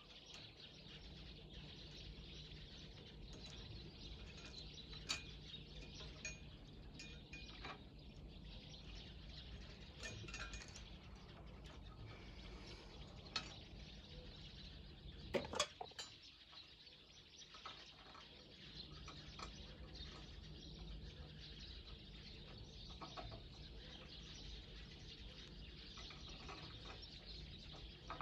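Faint outdoor ambience of birds chirping over a steady low hum, broken by a few sharp metal clinks from work on a snow plow, the loudest a quick cluster about halfway through.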